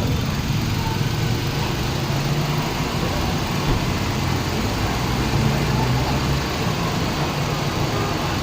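Nissan Almera engine idling with a steady low hum.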